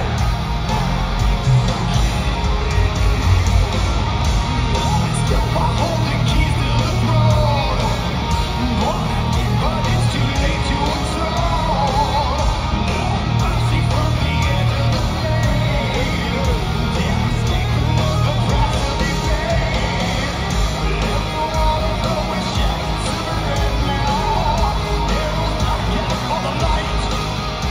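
Heavy metal band playing live, recorded from the crowd: loud distorted electric guitar over a heavy low end.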